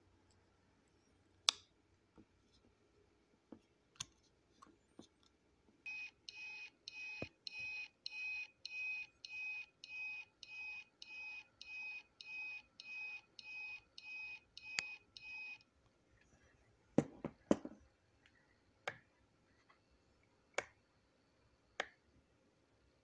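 Brass replica Voyagers! Omni time device beeping electronically at an even pace of about two beeps a second for roughly ten seconds, starting about six seconds in. Sharp clicks from the metal casing being handled come before and after, with a quick cluster of louder clicks just after the beeping stops.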